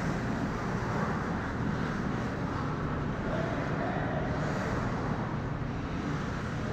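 Steady ice-rink ambience during a hockey game: an even, low rumble of the arena with distant skating and play at the far end of the ice.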